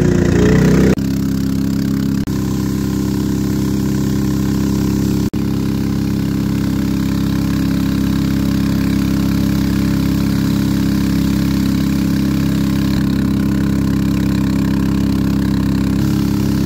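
Small engine of a wooden river torpedo boat running at a steady pitch, heard from aboard. The sound drops out for a moment about one, two and five seconds in.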